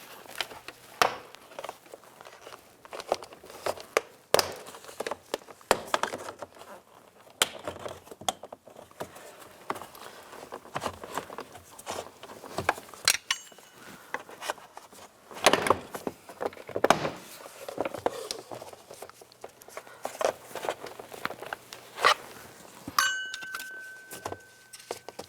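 Plastic push-pin clips on a GMC Yukon's interior door panel popping out as a trim tool pries the panel away from the door, a run of sharp, irregular pops and clicks with plastic rattling in between.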